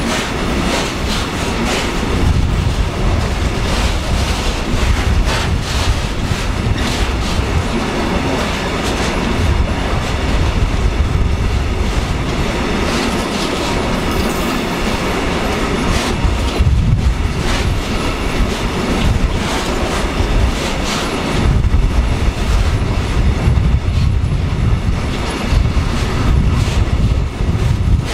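A long freight train of bogie hopper wagons rolling past close by: a steady heavy rumble with the repeated clack of wheels striking rail joints.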